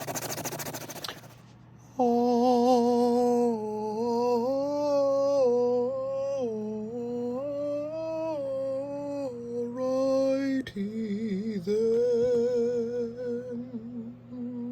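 Sandpaper scratching for about a second, then a person humming a tune, holding notes that step up and down.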